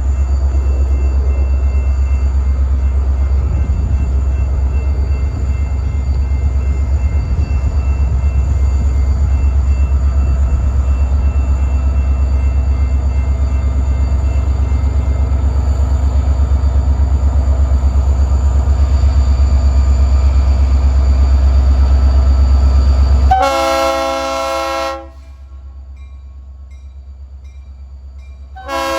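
Freight train passing close by with a loud, steady low diesel rumble, then a multi-note locomotive horn sounding about 23 seconds in for about a second and a half, and sounding again at the very end.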